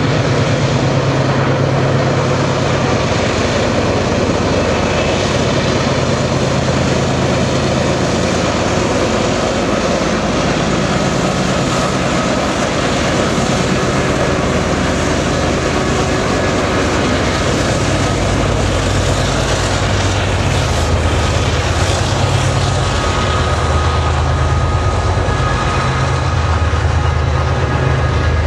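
Diesel locomotives of a BNSF freight, led by a GE Dash 9-44CW, passing with a deep, steady engine drone that drops lower in pitch partway through as the following units go by. The noise of the freight cars rolling is mixed in.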